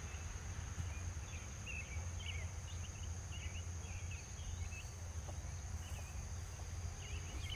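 Steady high-pitched insect drone, with short bird chirps scattered through it and a low rumble beneath.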